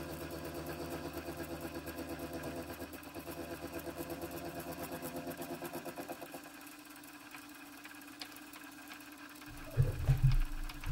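Vertical milling machine with a 2-inch shell mill taking a face-milling pass, a steady hum with a fast, even pulse from the cutter. About six seconds in the cut ends and it goes quieter, and near the end there is a short, loud, low-pitched sound.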